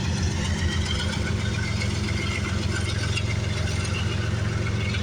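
Steady low engine drone with no change in pitch, from a diesel engine running at a slow, even pace.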